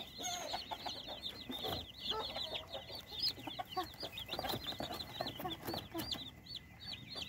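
A brood of Cornish Cross meat chicks peeping: many short, high cheeps a second, overlapping in a continuous chorus.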